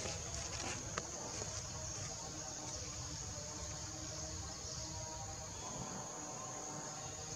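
Steady, unbroken high-pitched drone of insects in the trees, over a low background rumble.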